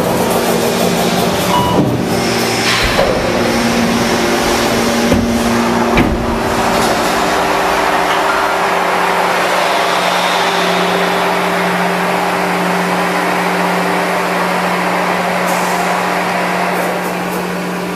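Machinery of an 800-ton press during an automatic die change, as the die is moved out: a loud, steady mechanical hum with a low tone. A few clanks come in the first six seconds, and the hum grows stronger about halfway through.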